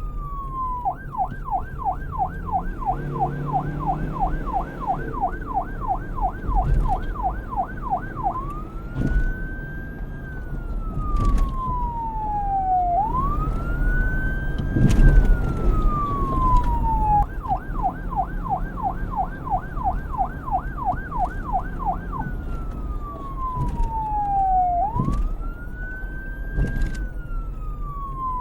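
Police car's electronic siren switching between a slow wail, rising and then falling over about four seconds, and a rapid yelp of about three sweeps a second. The yelp runs for several seconds near the start and again past the middle, and comes back right at the end. A low rumble runs underneath.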